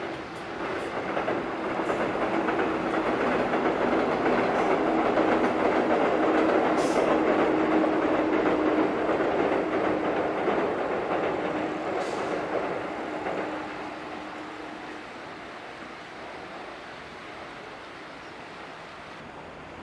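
JR West 103-series electric train crossing a steel girder railway bridge, its wheels running over the bridge with a steady hum beneath. The sound builds over the first couple of seconds, is loudest in the middle, and dies away after about fourteen seconds.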